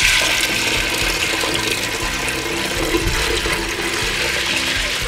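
Water pouring in a steady stream from a plastic pitcher into a clay pot of dry red beans and half an onion, a continuous gushing splash. This is the pot being filled with its cooking water.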